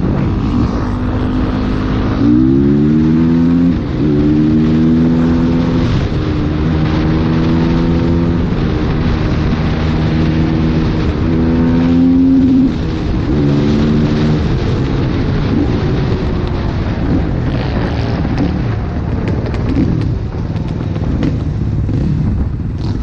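Motorcycle engine running under way, its pitch climbing as it accelerates about two seconds in and again around the middle, with short dips between the pulls like gear changes. Wind noise runs underneath.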